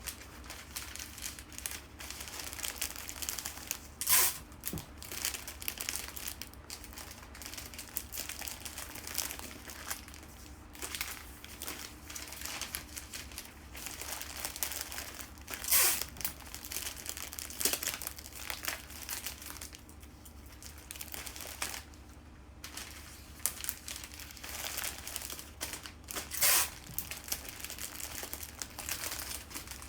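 Bouquet wrapping material crinkling and rustling as it is handled, with three louder crackles about 4, 16 and 26 seconds in.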